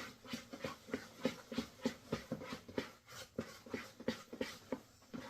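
Wet bread dough being stirred by hand in a mixing bowl, in quick even strokes about three times a second.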